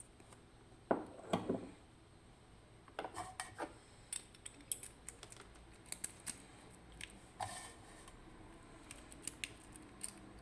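Scattered small metallic clicks and knocks from handling a picked Abloy Profile disc-detainer padlock, with a louder knock about a second in and a short scrape partway through.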